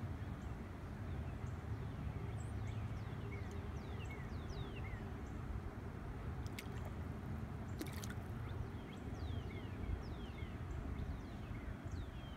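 Quiet lakeside ambience: a low steady rumble with faint dripping and lapping water, and many short falling chirps from birds scattered throughout. Two brief sharp clicks past the middle.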